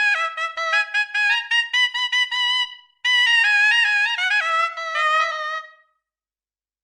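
A sampled Indian wind instrument from the SwarPlug 4 virtual-instrument plugin playing a solo melody, reedy and rich in overtones. The first phrase is quick separate notes climbing in pitch; after a brief gap about three seconds in, a second, more connected phrase drifts back down and ends about a second before the close.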